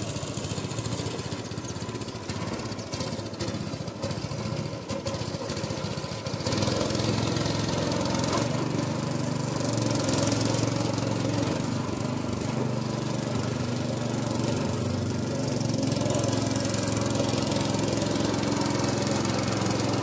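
Small outboard boat motor running steadily, its hum getting louder about six seconds in as the canoe is driven up into the river current.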